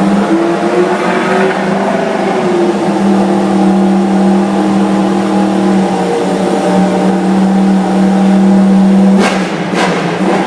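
Yamaha M1 800cc MotoGP bike's inline-four engine running loud at a steady fast idle, its pitch lifting slightly and settling in the first few seconds. Two sharp cracks come about half a second apart near the end.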